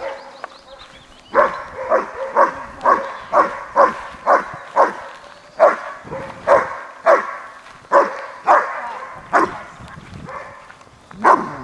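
German shepherd barking repeatedly during protection (schutzhund) training, about two loud barks a second. The barking starts about a second in and pauses briefly near the end.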